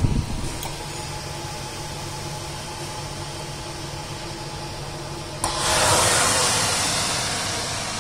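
Electric convection oven's fan running with a steady hum and hiss. About five and a half seconds in, the oven door is opened and the fan's rushing noise suddenly gets much louder, then slowly fades.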